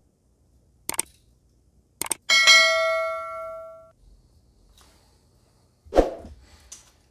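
Two short clicks, then a small metal object struck sharply, ringing at several pitches and fading over about a second and a half. A duller knock follows near the end.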